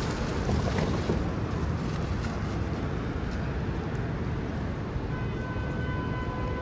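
Steady rumble of city street traffic. About five seconds in, a steady high whine joins it and holds.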